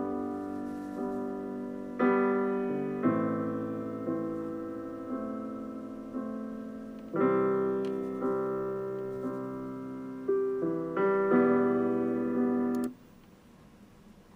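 Solo piano playing slow chords, each struck and left to ring and fade before the next. The playing cuts off suddenly near the end.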